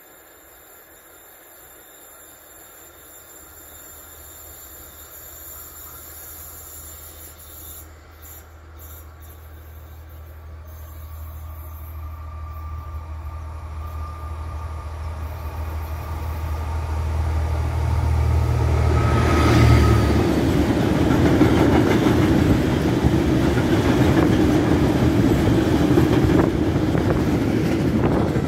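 MaK diesel locomotive hauling a train of tank wagons, its engine drone growing steadily louder as it approaches. About two-thirds of the way through, the engine sound drops away as the locomotive passes. The loud rolling rumble of the tank wagons going by takes over.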